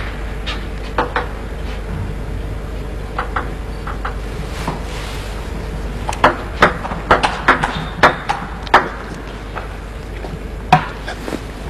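Table tennis ball clicking sharply off the rackets and the table: a few separate clicks in the first seconds, then a quick run of hits in a rally from about six seconds in.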